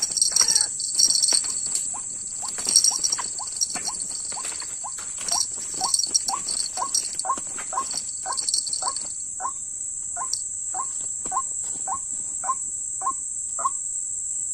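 White-breasted waterhen (dak pakhi) call: a long, even series of short upward-sliding notes, about two a second, over a steady high-pitched shrill like crickets.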